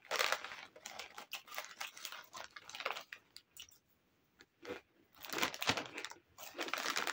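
Doritos tortilla chips crunching as they are chewed, mixed with the crinkle of the plastic chip bag as chips are tipped from it into the mouth. It stops briefly about halfway through, then the crunching and crinkling resume.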